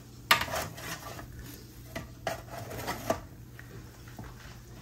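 Dishes and cutlery clattering: a sharp clack about a third of a second in, then a few more clinks and knocks around two to three seconds in.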